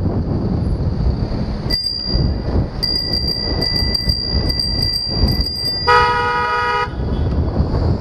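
Car horn mounted on a bicycle (the Loud Bicycle Horn) blasting once for about a second, two pitches sounding together, about three quarters of the way in. Underneath runs wind and road rumble from riding.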